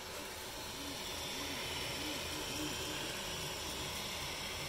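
Kingroon KP3S Pro V2 3D printer running a print: a steady hiss of its cooling fans, with the stepper motors giving short rising-and-falling whines, a little under two a second, as the head and bed move back and forth.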